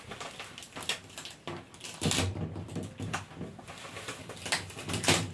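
Thin plastic cups and plastic film handled on a tabletop: scattered light clicks and rustles, with a low hum underneath from about two seconds in.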